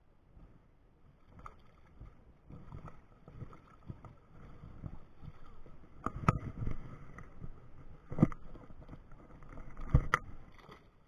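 Hooked American shad splashing and thrashing at the water's surface as it is reeled in and lifted out. Sharp knocks come about 6, 8 and 10 seconds in as the flapping fish is handled.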